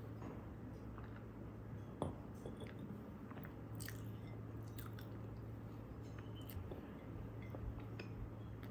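Close-up chewing of a moist, soft lemon pound cake, with small wet clicks of the mouth and one sharper tick about two seconds in, over a steady low hum.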